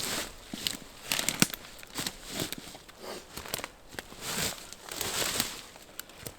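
Rustling and crackling in irregular bursts about once a second, with sharp little clicks, like dry material being crumpled or stepped on close by.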